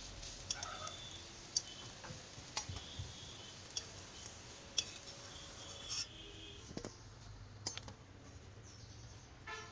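Faint, scattered clicks and light scrapes of a metal spatula against an iron kadai with shallow hot oil. About six seconds in, a few more light clinks follow, of the spatula against a steel plate.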